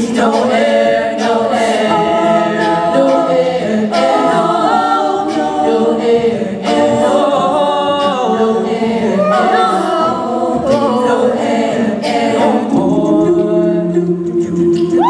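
Mixed male and female a cappella group singing in close harmony into handheld microphones, with no instruments.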